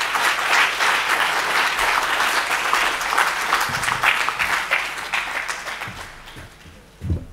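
Audience applauding, a dense patter of clapping that fades out over the last couple of seconds, followed by a low thump near the end.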